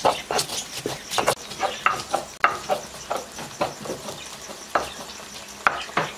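Stone pestle grinding dried chiles with garlic and salt in a volcanic-stone molcajete: irregular scraping strokes with short clicks of stone on stone, a few each second.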